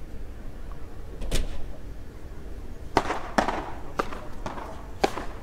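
Beach tennis paddles striking the ball: a single sharp pop a little over a second in, then four more spaced about half a second to a second apart from about three seconds in.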